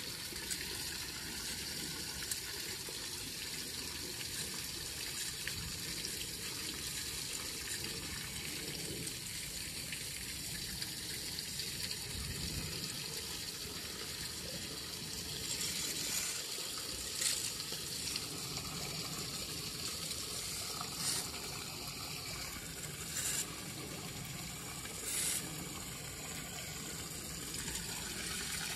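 Steady rush of water pouring into a storm drain once its leaf clog has been raked clear, with a few short louder sounds over it in the second half.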